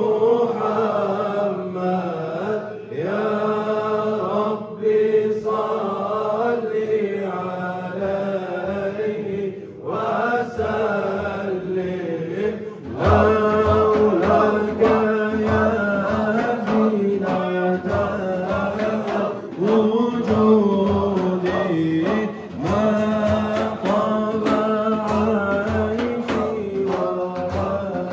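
Sufi dhikr chanting, sung in long sustained notes. About halfway through, a fast rhythmic percussion beat joins the chant.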